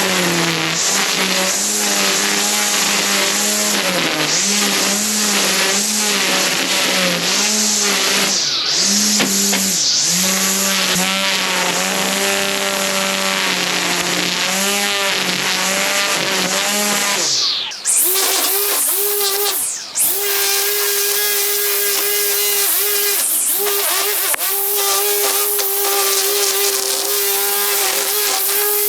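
Small petrol engine of garden power equipment running, its pitch rising and falling as it works under changing load. About two-thirds of the way through it drops out briefly twice, then runs at a higher, steadier pitch.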